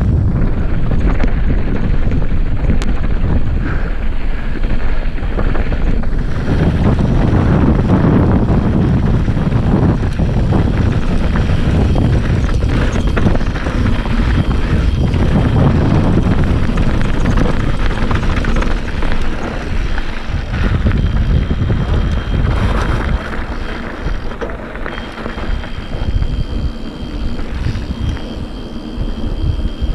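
Wind buffeting the camera microphone, mixed with mountain bike tyres rolling over dirt and pavement at speed downhill. The rush eases somewhat in the last ten seconds, and a thin high steady whine comes in near the end.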